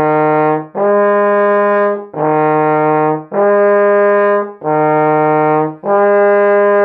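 Trombone played with the slide held in third position, jumping back and forth between E flat and the A flat on the next partial up: six sustained notes of about a second each, lower and higher in turn, with a short break between them.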